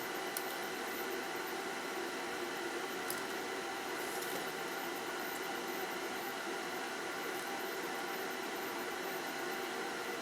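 Steady hiss of background noise with a few faint small clicks, about half a second in, around three seconds in, and just after four seconds.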